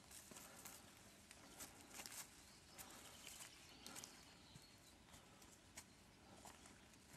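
Near silence with faint, irregular footsteps in dry grass and pine needle litter.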